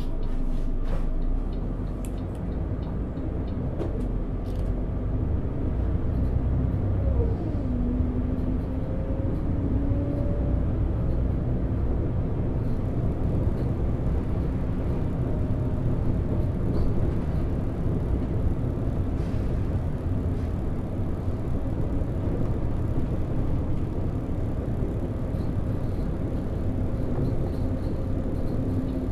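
Volvo B12BLE city bus under way, heard inside from the driver's side: the DH12E twelve-litre six-cylinder diesel runs under a steady rumble of road noise, its pitch falling about seven seconds in and then holding. A faint buzz from the bus's faulty display sits in the background.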